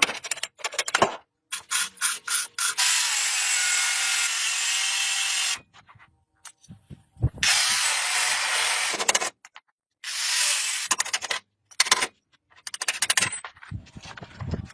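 Hand-tool workshop sounds in short bursts: sharp clicks and knocks, and three stretches of steady scraping or rubbing, the longest about three seconds. The sound cuts off abruptly between them.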